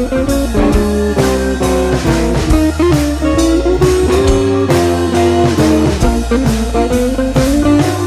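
Background music: guitar-led blues-rock with a steady drum beat.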